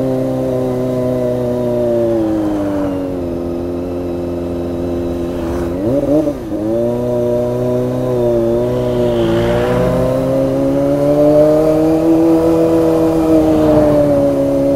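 Kawasaki ZX-25R's 250 cc inline-four engine running, its pitch sagging gently at first. A quick rev up and back comes about six seconds in, then the pitch climbs slowly and eases off again near the end.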